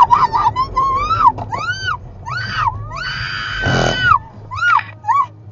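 Car occupants screaming as the car spins on a slippery wet road: a string of short cries that rise and fall, with one longer held scream about three seconds in. A brief rush of noise comes just before four seconds in, over the low hum of the car.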